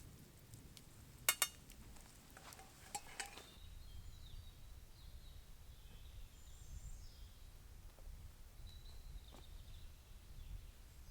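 Two sharp metallic clinks about a second in, like a utensil striking a cooking pot, then a few lighter clinks a couple of seconds later. Faint bird chirps follow over a low steady rumble.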